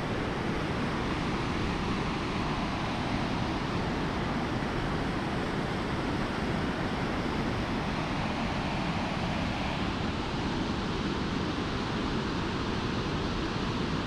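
Water pouring over a concrete dam spillway and rushing over the rocks below: a steady, even rush of falling water.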